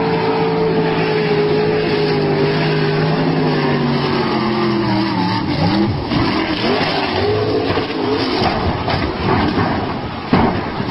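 A racing boat's engine runs at high speed under a wash of spray noise, its note sliding slowly down for about five seconds. The note then breaks into short, uneven rises and falls as the boat leaves the water onto the rocky shore, with a sharp knock near the end.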